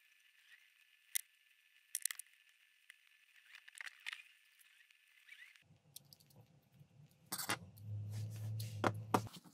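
Scattered faint clicks and taps of small 3D-printed PLA engine parts and metal bolts being handled and fitted together, with a low hum near the end.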